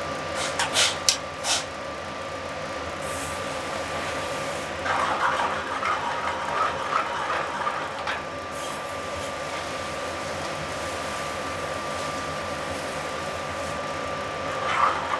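Steady hum of a commercial kitchen's exhaust hood and gas range, with a faint steady whine. A few sharp clicks of a spoon against a sauté pan come in the first second and a half, and irregular stirring sounds from the pan come for a few seconds in the middle.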